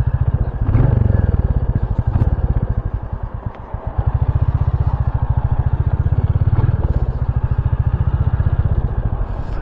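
Royal Enfield GT650's 648 cc parallel-twin engine running with a steady low pulsing beat, briefly quieter about three seconds in before settling back.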